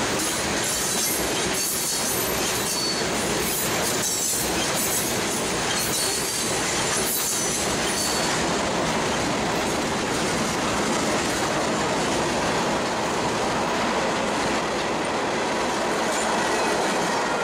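Freight cars (tank car and covered hoppers) of a manifest freight train rolling past at close range: a steady rumble and clatter of wheels on rail. Through the first half, irregular clicks from the wheels and brief high wheel squeals come through. After that it settles into a smoother, even rolling noise.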